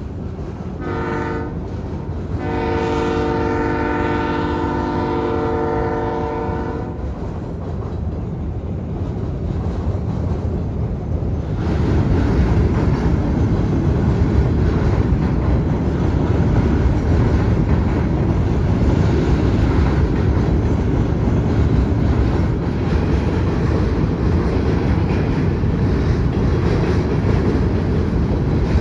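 BNSF diesel freight locomotive's horn: a short blast about a second in, then a long blast of about four seconds, over the steady rumble of the passing freight train. From about twelve seconds in, a louder, even rushing rumble of freight cars rolling by.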